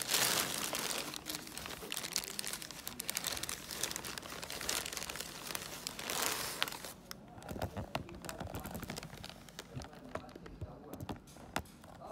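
Thin plastic bag crinkling and rustling as it is handled. The sound is dense and loud for roughly the first seven seconds, then turns quieter with scattered crackles.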